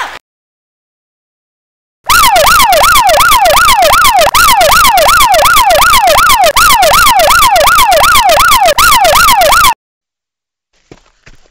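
Ambulance siren in a fast yelp, its pitch sweeping up and down about three times a second. It starts about two seconds in, is loud, and cuts off suddenly near the end.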